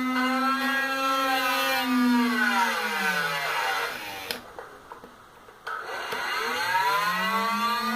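Small 12-volt DC motor of a homemade mini bench drill running with a steady whine, then winding down to a stop about two seconds in. After a short quiet pause it spins back up, the whine rising in pitch to full speed near the end.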